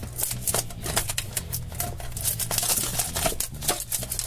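Clear plastic shrink-wrap crackling and crinkling in quick, irregular clicks as fingers peel it off a small tin box, over faint low background music.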